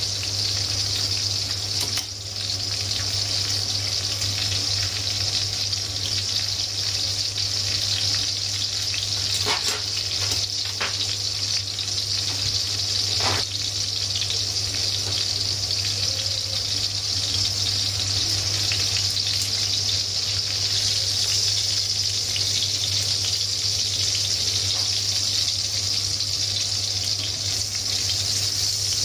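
Breaded pork chops deep-frying in hot oil in a pan: a steady, even sizzle, with a low steady hum underneath and a few faint clicks in the middle.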